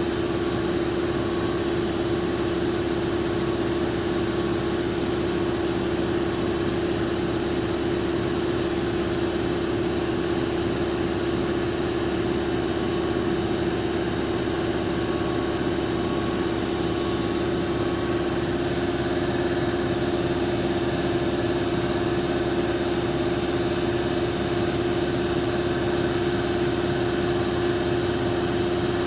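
An MC lathe (a CNC lathe) running steadily: an even machine drone with a constant hum and a faint high-pitched whine.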